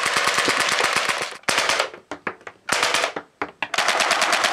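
Gas blowback airsoft submachine guns with automatic cartridge ejection, a Tokyo Marui Walther MPL among them, firing rapid full-auto bursts as the bolt cycles and throws out the plastic cartridges. A long burst comes first, then several short bursts and single-shot groups with brief pauses, and a long burst again near the end.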